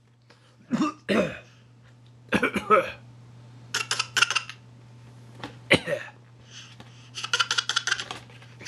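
A baby fake coughing in a string of short, separate cough bursts, about six in all. The last one, near the end, is a longer run of rapid sputtering pulses.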